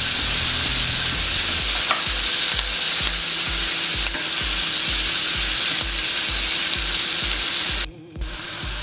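Diced onion, celery and mushrooms sizzling in a nonstick skillet with vegan sausage patties, stirred with a spatula that now and then clicks against the pan. The sizzling cuts out for a moment near the end, then returns quieter.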